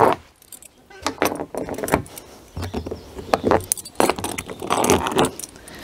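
Metal linchpins being pulled one after another from the fixings of a plastic chicken coop's roof: repeated metallic clicks and jingling, with short rubbing sounds as the pins are worked out.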